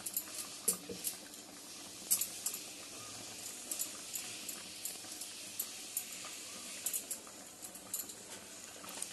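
Prawn curry in coconut milk and yogurt simmering in an aluminium kadai, its bubbles popping and crackling irregularly, a few crisp pops a second over a faint steady hiss.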